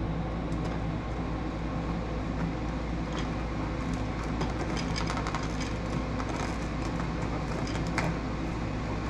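Faint scattered clicks and taps of a carbon fiber grille insert being handled and pressed into a car's plastic front grille opening, most of them in the second half, over a steady low hum.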